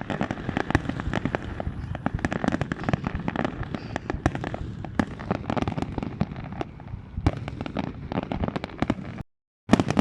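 Fireworks display in a dense barrage: rapid overlapping bangs and crackles from many bursting shells over a continuous rumble. The sound drops out for about half a second near the end.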